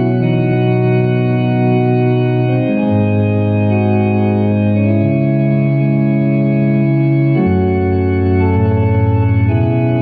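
Organ playing slow, sustained chords, each held for about two seconds before moving to the next.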